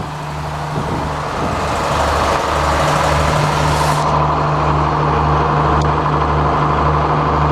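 Sawmill engine running steadily, out of gear, with a low throb about one and a half times a second. There is a faint click about six seconds in.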